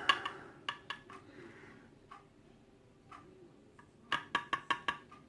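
Small metallic clicks and taps of padlock parts being handled as the picked lock is taken apart: a few scattered single clicks, then a quick run of about six clicks about four seconds in.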